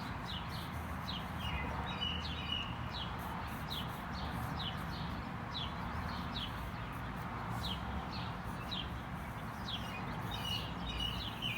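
Birds singing at dusk, with a robin among them: a steady run of short, high, falling chirps about twice a second, and a lower warbled phrase twice, over a faint steady background hiss.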